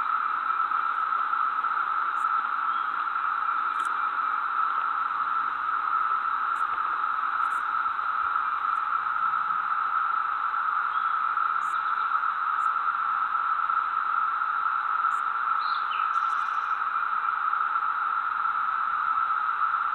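Steady, unbroken drone of a cicada chorus in summer woodland, even in pitch and level throughout.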